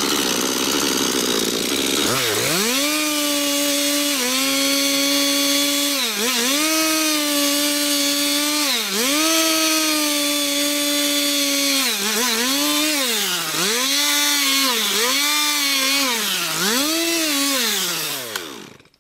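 Chainsaw cutting into wood for about two seconds. It then runs at high revs off the cut, the revs dropping and picking up again several times, more quickly near the end. It then winds down and stops.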